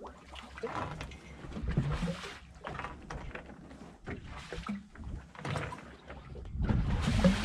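Water sloshing against the hull of a becalmed steel sailboat in irregular surges every second or two, with knocks and creaks from the boat. The surges are loudest near the end.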